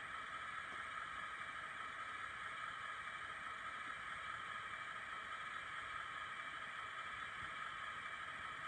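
Digitrax SDH186MT sound decoder in a KATO HO-scale DE10 model playing the diesel idle sound through its small 28 mm speaker: a steady, thin, unchanging drone with the locomotive standing still.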